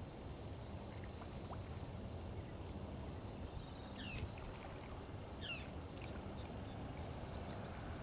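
Steady low outdoor noise of water and wind, with two short high bird calls about four and five and a half seconds in.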